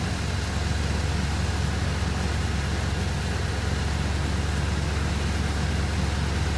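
Off-road 4x4's engine idling steadily, a low even rumble heard from inside the cab with the door open.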